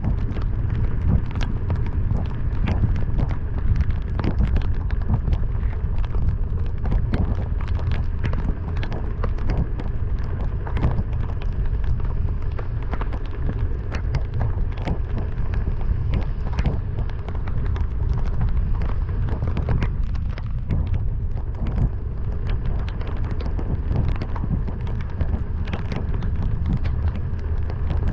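Heavy rain hitting a moving car, many sharp drop impacts crackling over a steady low rumble of the car on a wet road.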